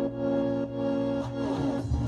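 Instrumental background music with sustained chords.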